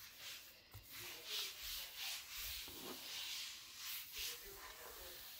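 A cloth wiping a wet wood-effect kitchen countertop: a soft rubbing swish that swells with each stroke, about once a second.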